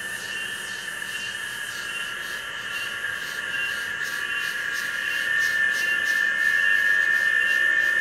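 Insects in the trees keeping up a steady, high shrill drone with a pulse that repeats a little faster than once a second, swelling louder about five seconds in.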